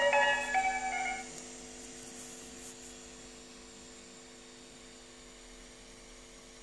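The song's last piano notes ring out and die away about a second in, leaving a faint steady hum.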